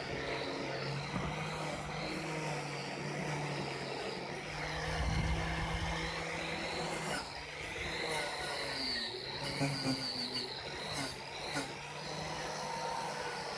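A small motor running steadily, with a few sharp knocks about ten seconds in.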